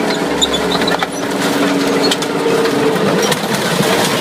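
Handling noise: a dense run of small sharp cracks and crunches, a dry crackling, while a toy tank is picked up and moved about.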